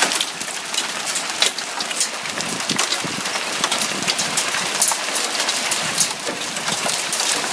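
Large hailstones and heavy rain pelting down. The stones strike hard surfaces in a dense, irregular run of sharp clicks and knocks over a steady hiss.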